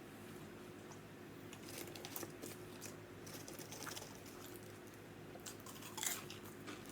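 Faint close-up chewing and biting of an Italian sub, with a few soft crunchy clicks scattered through, over a steady low hum.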